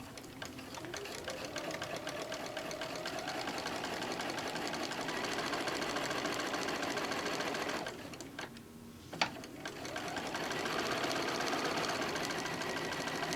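Electric sewing machine stitching a seam, its needle strokes running fast and even as it gets up to speed. It stops for about a second just past halfway, a click sounds, and it starts stitching again.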